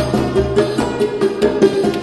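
Background music: a melody of held notes over a regular beat.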